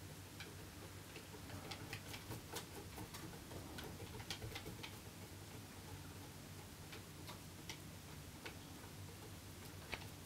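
Cat exercise wheel turning under a Bengal cat walking on it: irregular light clicks and taps from the paws and the rolling wheel, thickest in the first half and sparser later, over a low steady hum.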